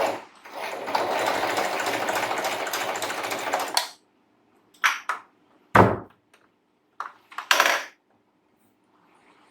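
Singer electric sewing machine running for about three seconds with a fast, steady clatter, then stopping. A few separate clicks and one low thump follow.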